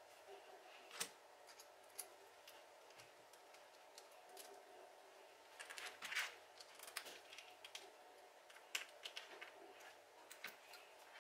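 Near silence with scattered faint clicks and rustles from hands working fabric and a zipper, a small flurry of clicks about six seconds in and another near nine seconds.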